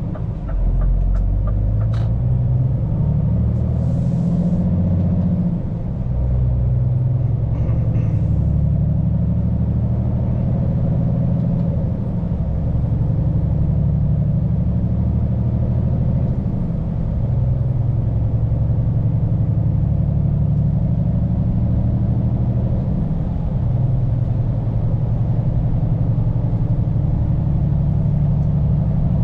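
Scania P410 truck's diesel engine running under way, heard from inside the cab, its pitch shifting as the revs change. A short hiss of air comes about four seconds in, and a few light clicks sound at the start.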